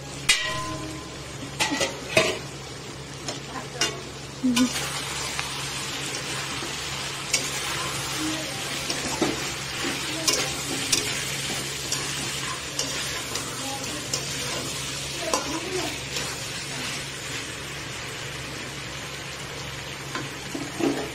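Meat frying and sizzling in a metal kadai while a metal spatula stirs and scrapes through it. Sharp clanks of metal on the pan come in the first few seconds, then lighter knocks now and then over the steady sizzle.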